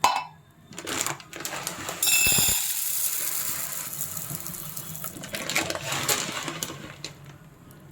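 Dry urad dal grains rattling into and against a metal pan: a few clicks, then a dense steady rattle from about two seconds in that slowly fades.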